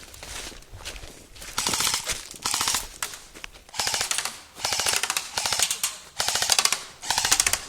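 Airsoft rifle firing full-auto in short bursts of rapid clicking shots, about seven bursts of roughly half a second each, with short pauses between.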